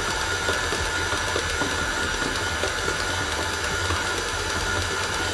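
Electric mixer running steadily as it beats cake batter, a constant motor hum with a thin whine.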